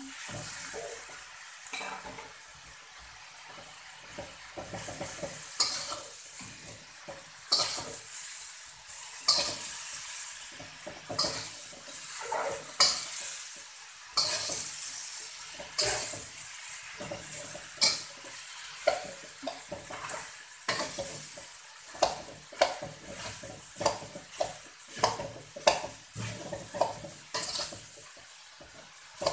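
Yellow noodles and vegetables stir-fried in a steel wok: a slotted metal turner scrapes and clatters against the pan in repeated irregular strokes over a steady sizzle. The strokes come quicker in the second half.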